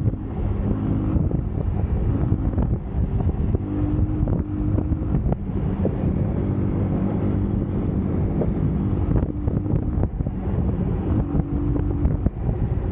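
Eagles EBA250 250cc motorcycle engine running while being ridden over rough ground, its pitch shifting up and down a little, under heavy wind buffeting on the microphone and frequent short knocks.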